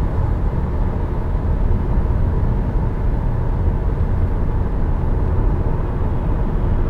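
Steady cabin noise inside a Subaru Forester Sport cruising at 100 km/h: a low, even rumble of road and wind noise with the engine underneath. A sound level meter in the cabin reads it at about 66 dB.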